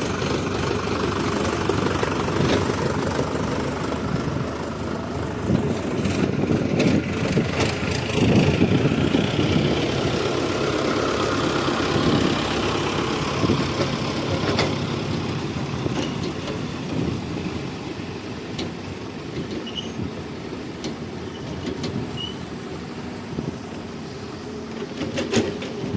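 Heavy diesel earth-moving machinery running under load, a steady low engine rumble with scattered clanks. It is loudest in the middle stretch and eases off near the end.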